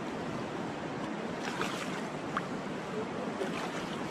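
Steady rush of river current flowing around a wading angler's legs, with a few brief small splashes in the middle.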